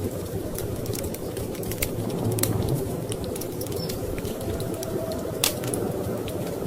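Wood fire crackling, with irregular sharp pops and snaps, the loudest about five and a half seconds in, over a steady low rumble of storm wind.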